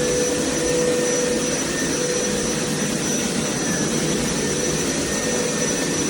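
Hoover PowerScrub XL Pet carpet cleaner running steadily: a loud, even whir with a constant high whine over it.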